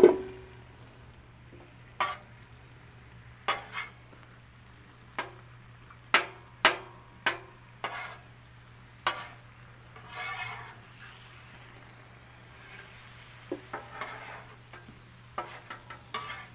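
Steel spatulas scraping and tapping on a flat-top steel griddle, in separate strokes a second or so apart, as candied sweet potato chunks and butter pats are turned, over a faint steady sizzle. It opens with one loud metal clank.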